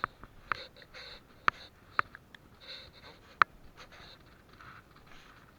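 Close handling noises: several sharp clicks and ticks at uneven intervals amid soft rustling, as a hook is worked loose from a freshly caught bass.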